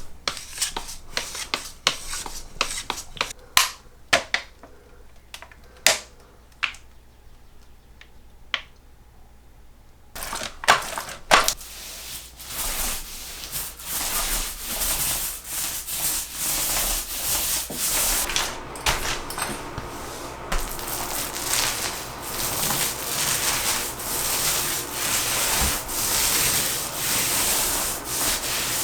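Scattered sharp clicks and knocks, then from about ten seconds in a steady back-and-forth rubbing of a hand tool against a wall, roughly one stroke a second.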